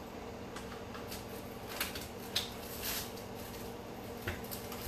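A few faint knocks and rustles of items being moved about inside an open side-by-side refrigerator, over a steady low appliance hum.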